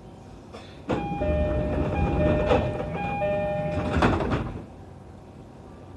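A train going by close at hand: the rush of noise rises suddenly about a second in and dies away after about three and a half seconds, with a few steady high tones over the rumble.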